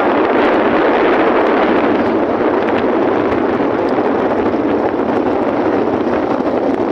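Steady, loud rush of wind on the microphone mixed with vehicle and tyre noise from travelling along a wet road.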